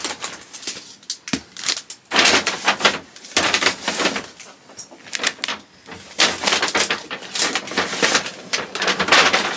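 A gift bag rustling in irregular bursts as gifts are packed into it.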